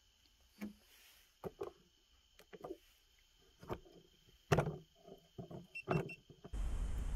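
A series of irregular knocks, clicks and rustles close to the microphone, like gear or clothing being handled. About six and a half seconds in, a sudden steady rush of noise starts and carries on.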